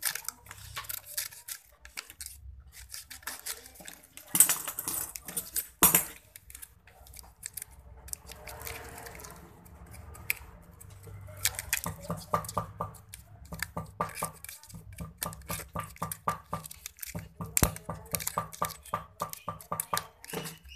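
Light metallic clicks and taps from small hand tools worked against a rewound electric motor armature, with a few sharper snaps and runs of quick even taps, about four a second.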